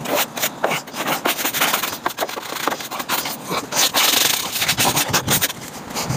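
Irregular scrubbing and scraping strokes as the cowl area of the truck is cleaned off, with a longer hiss about four seconds in.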